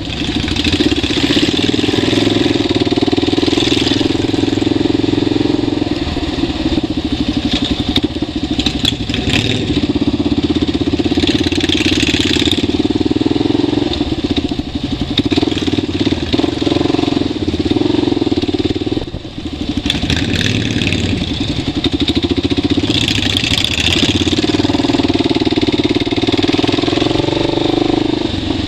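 Motorcycle engine running steadily while riding. The engine note eases briefly about two-thirds of the way through.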